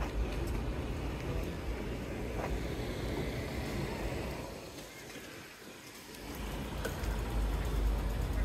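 Street traffic noise: a steady hum and hiss of passing cars with a low rumble, easing for a moment about five seconds in before building again.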